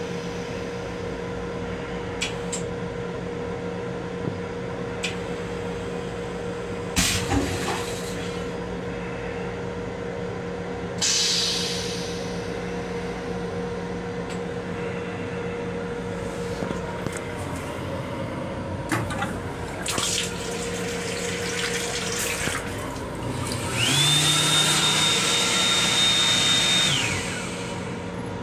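Railcar restroom toilet flushing: short spurts of water hiss into the stainless steel bowl, with a few sharp clicks. Near the end comes a louder run of about three seconds with a steady high whine. A steady hum from the rail car runs underneath.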